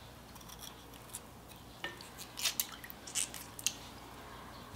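Kitchen knife cutting the woody bases off blanched dureup (Aralia elata) shoots: a scattering of faint clicks and snips, most of them between about two and four seconds in.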